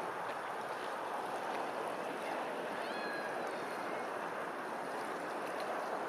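Steady rush of flowing water. A brief, faint bird call sounds about three seconds in.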